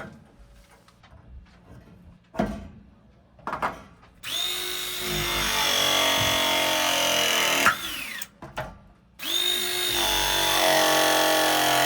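Two short knocks, then a battery ProPress pressing tool running two press cycles on copper fittings. Each cycle is a motor whine lasting about three and a half seconds that holds a steady pitch, then winds down with a falling pitch.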